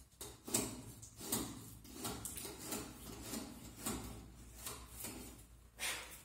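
Router plane cutting into a wooden panel in a series of short scraping strokes, about one or two a second, with a louder scrape near the end.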